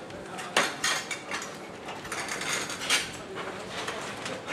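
Metal clinks and rattles of a party tent's frame as its white plastic cover is worked over it, several sharp knocks with the cover rustling between them.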